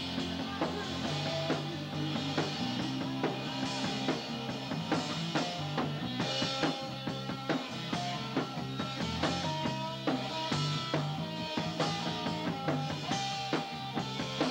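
Rock band playing an instrumental passage: a drum kit with steady snare and bass-drum hits, over bass guitar and electric guitar lines.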